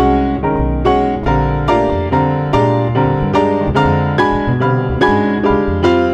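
Jazz piano solo on a grand piano, chords and runs struck in quick succession, with upright bass playing low notes underneath.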